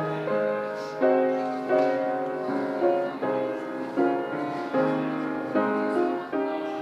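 Slow piano music: chords struck about once a second, each left to ring and fade.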